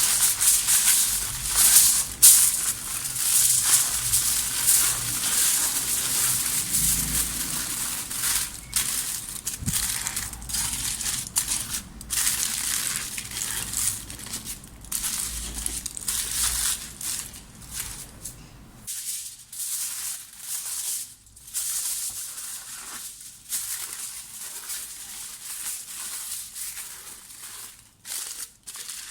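Aluminium foil crinkling and crackling irregularly as fresh coriander leaves are rolled up inside it. A low steady hum underneath stops about two-thirds of the way through.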